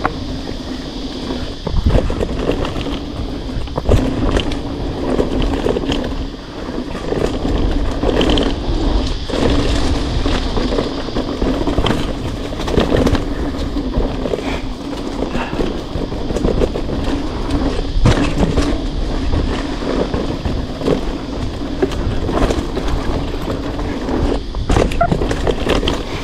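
Specialized Stumpjumper mountain bike ridden along a dirt trail on knobby Maxxis tyres: a continuous rolling rumble from the tyres on the ground, with many quick clicks and knocks as the bike clatters over bumps.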